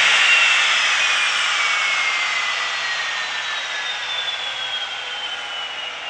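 Jet engines of a Cessna Citation business jet running at taxi power: a steady high whine over a rush of noise, its pitch sliding slowly down as the level eases off.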